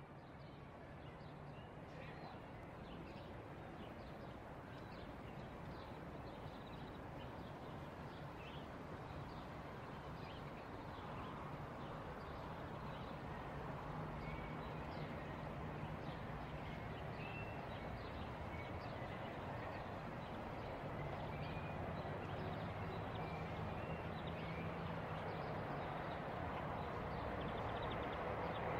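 Outdoor city ambience: a steady rumble of road traffic with small birds chirping now and then, fading in at the start and slowly growing louder.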